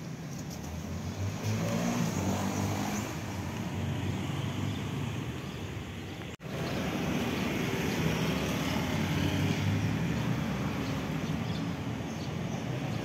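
Outdoor traffic noise: a nearby motor vehicle's engine running, with steady road noise. The sound breaks off for an instant about six seconds in.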